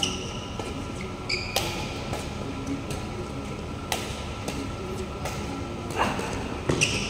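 Badminton rally: rackets striking a shuttlecock with sharp smacks about every two seconds, the hardest hit about six seconds in as the near player lunges, with short sneaker squeaks on the court floor in between. A faint steady hum of the sports hall runs underneath.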